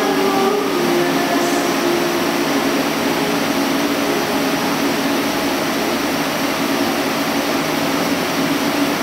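CNC lathe running as it turns a steel workpiece, a steady machine noise with several humming tones.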